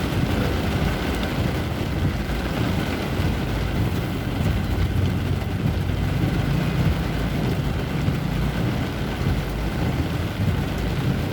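Steady low rumble of vehicles in traffic during heavy rain, a continuous wash of noise with no distinct events.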